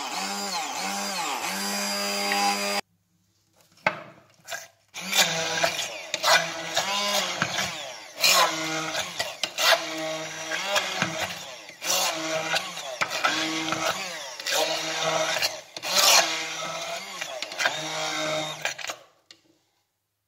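Stick (immersion) blender motor whirring in a bowl of cream as it churns into butter, its pitch sagging and rising as the thickening butter loads the blade, with frequent knocks. It stops about three seconds in, restarts in short bursts, then runs again until it cuts off near the end.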